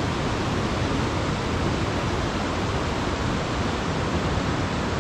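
Steady rush of falling water from a waterfall on a mountain stream, an even, unbroken noise.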